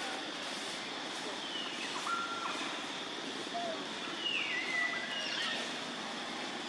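Outdoor ambience: a steady hiss with a constant high tone, crossed by a few short whistled animal calls, several gliding down in pitch, the clearest a little over four seconds in.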